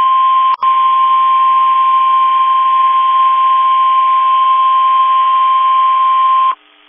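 NOAA Weather Radio warning alarm tone: one steady high tone over receiver hiss, with a brief dropout about half a second in. It cuts off about six and a half seconds in, signalling that a warning message follows.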